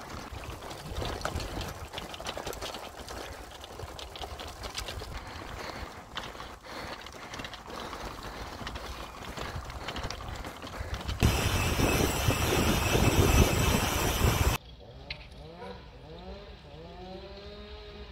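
Road bike rattling hard over cobblestones, a dense clatter of knocks with wind rushing over the microphone, loudest for a few seconds before cutting off abruptly. The last few seconds are quieter, with repeated sliding calls.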